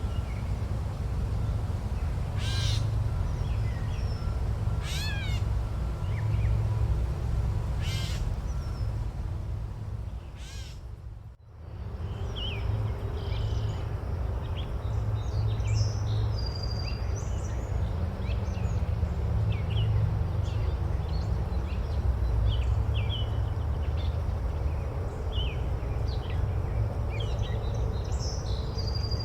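Forest birdsong: a bird gives four harsh cawing calls a few seconds apart, then after a brief fade about halfway through, many small birds chirp over a steady low rumble.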